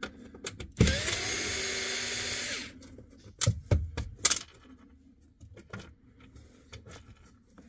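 Cordless screwdriver running for about two seconds, driving a screw into the seat-back panel: the whine rises as it spins up, then holds steady. It stops suddenly, and a few sharp knocks and clicks follow.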